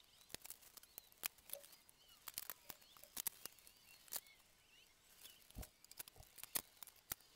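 Faint, scattered clicks and light knocks of small hand tools and bolts being picked up and set down on a workbench, a few slightly heavier knocks near the end, over quiet room tone.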